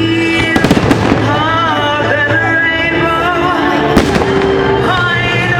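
Fireworks going off over loud music: a quick cluster of crackling pops about half a second in, and a single sharp bang about four seconds in.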